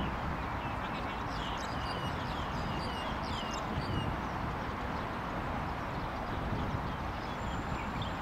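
Steady outdoor background noise with small birds chirping: a quick run of short, falling high notes from about a second in to about four seconds, then a few scattered ones.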